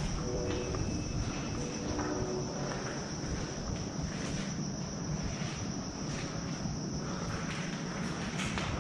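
Crickets trilling steadily in the night, over a low rumble of movement and camera handling.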